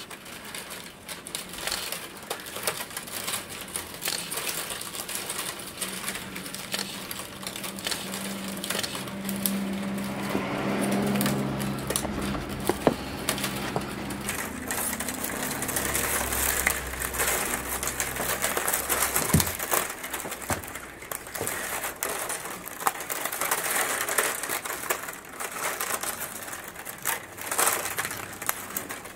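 Thin split-bamboo strips crackling, rustling and clicking against one another as they are hand-plaited into an ajiro-mi winnowing basket. A low steady hum comes in and fades away in the middle.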